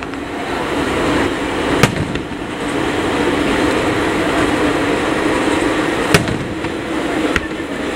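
Aerial firework shells bursting: three sharp bangs, one about two seconds in, the loudest about six seconds in and another just after, over a steady background din.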